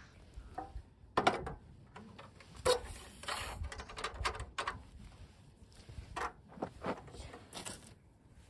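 Metal Japanese hot water bottle (yutanpo) being set down and shifted on the metal grate of a portable gas cassette stove: a series of separate knocks, taps and clinks, the loudest about a second in and near three seconds in.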